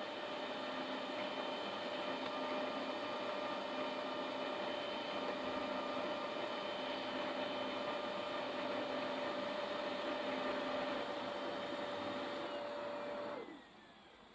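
Xerox C235 colour laser printer's internal motors and fan running with a steady whir and a hum, then winding down with a falling whine and stopping about 13 seconds in.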